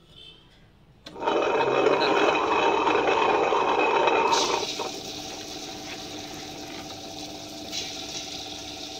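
Electric table-top wet grinder running, its two granite roller stones turning in the steel drum as soaked urad dal goes in. A loud, rough grinding noise starts about a second in and lasts about three seconds, then settles into a steadier, quieter hum of the motor and stones.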